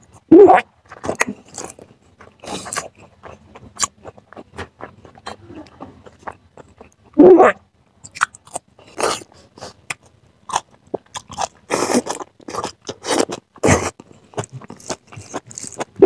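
A person eating rice and spicy chicken curry by hand, with mouth sounds of crunching, biting and chewing. Irregular short clicks and crackles run throughout, and a few louder bites or bursts are scattered among them.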